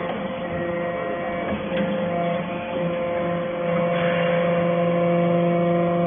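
Aluminum-chip briquetting press running: a steady hum from its motor-driven hydraulic power unit, with a couple of faint clicks in the first two seconds.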